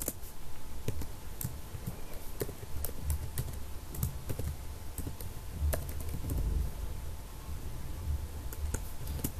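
Computer keyboard typing: irregular keystroke clicks over a low steady hum.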